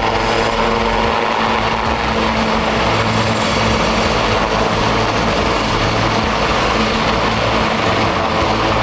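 Two Westland Lynx helicopters flying in formation: the steady noise of their rotors and turbine engines, holding even throughout.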